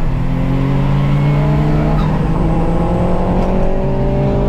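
Turbocharged Subaru EZ30 3.0-litre flat-six in a Liberty Spec B pulling hard at full throttle, its engine note climbing steadily in pitch, with a short break about two seconds in before it climbs again.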